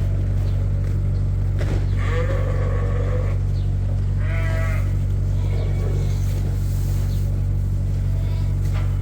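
Sheep bleating in a barn: a long call about two seconds in, another at about four and a half seconds, and fainter calls later. A steady low hum runs underneath.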